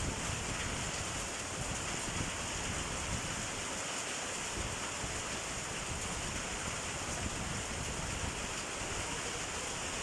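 Heavy rain with hail falling in a steady downpour.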